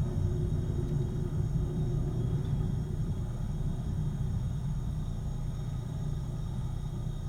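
Low, steady rumble of a jet airliner's engines, with a faint steady whine above it, slowly fading.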